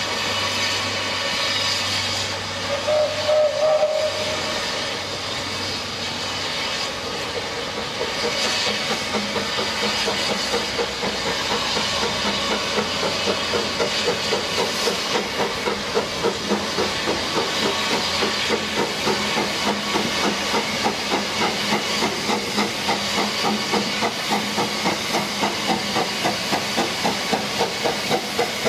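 Narrow-gauge steam tank locomotive LYD hissing as it comes in, with a short whistle about three seconds in. From about eight seconds on its exhaust beats settle into an even chuffing of roughly two a second that grows louder as the engine comes nearer.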